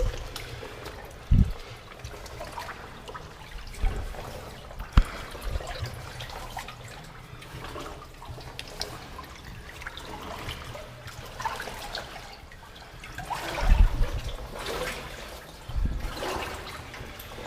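Water sloshing and splashing as people wade through a flooded tunnel, with a few sharp thuds.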